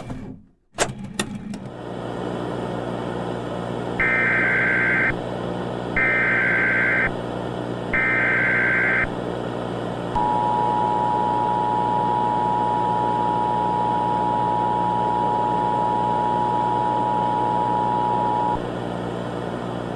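Emergency Alert System broadcast tones over a bed of static and hum: a crackle of static, then three one-second bursts of SAME header data, then the two-tone attention signal held steady for about eight seconds.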